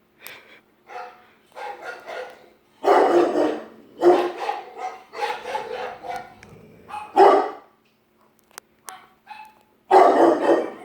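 A dog barking in irregular bouts. The loudest barks come about three seconds in, about seven seconds in and near the end, with a quieter stretch of a couple of seconds before the last bout.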